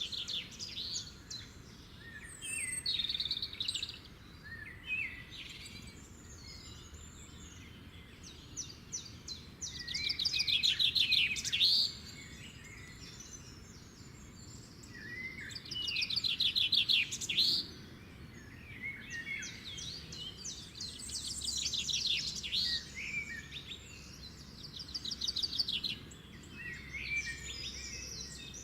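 Wild birds singing: bursts of fast, high chirps and trills every few seconds over a faint steady background, the loudest phrases about ten seconds in and again about sixteen seconds in.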